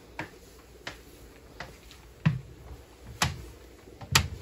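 Footsteps climbing teak stair treads: six knocks at a walking pace, about two-thirds of a second apart, louder in the second half.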